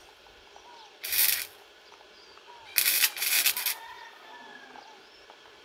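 Titanium Easy-Flux 125 flux-core wire welder's arc crackling and sputtering in two short tack welds: a brief one about a second in and a longer, stuttering one around three seconds in.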